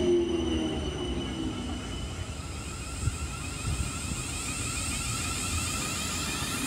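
South Western Railway Class 707 electric multiple unit running into the platform: rumble of wheels on the rails, with a high electronic whine from its traction equipment rising in from about two seconds in.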